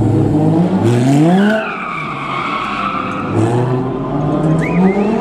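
Car engines revving as cars take a tight hairpin. In the middle there is a long tyre squeal that rises and falls in pitch, and near the end another engine accelerates with short tyre chirps.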